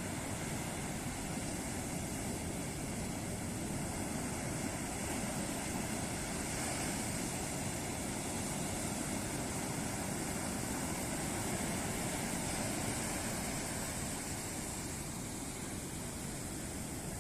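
Ocean surf washing onto a beach: a steady rush of breaking waves that swells a little about two-thirds of the way through.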